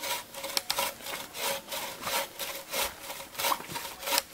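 Hand saw cutting through wood in steady back-and-forth strokes, about three a second.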